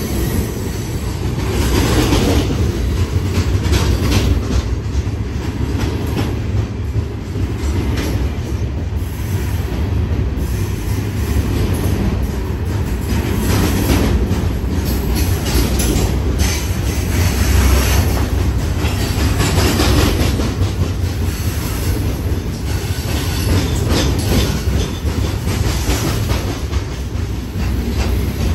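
Freight train's hopper cars rolling past close by: a steady low rumble with the wheels clacking irregularly over the rail joints.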